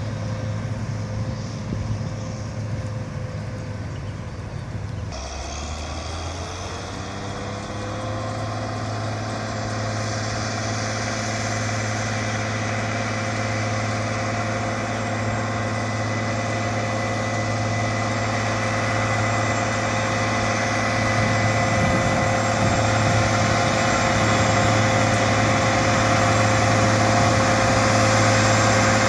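Western Star 4900 water truck's diesel engine running steadily under the wide hiss of water spraying from its side spray heads. About five seconds in the sound changes abruptly and the engine pitch rises for a moment, then it grows gradually louder as the truck approaches.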